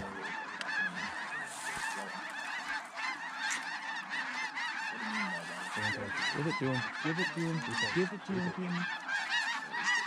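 A large flock of snow geese calling overhead: a dense, continuous chorus of many short, high honking calls overlapping one another.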